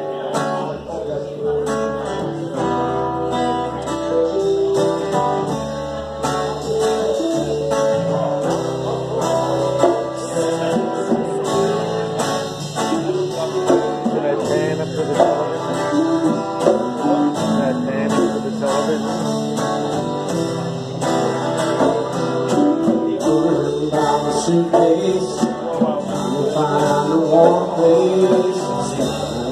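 A small live band playing: electric guitars over electric bass, with continuous layered notes.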